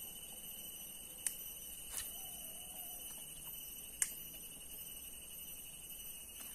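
Steady high-pitched insect drone from the surrounding swamp forest, several thin tones held without a break, with three faint sharp clicks about a second, two seconds and four seconds in.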